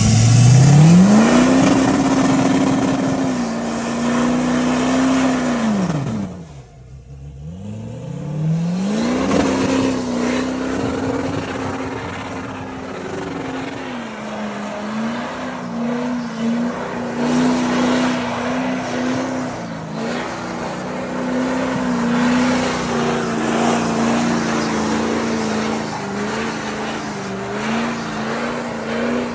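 GMC Sierra Denali HD pickup doing a burnout: the engine revs up and is held high with the tyres spinning, drops off briefly about six seconds in, then revs back up and is held high, wavering slightly, for the rest.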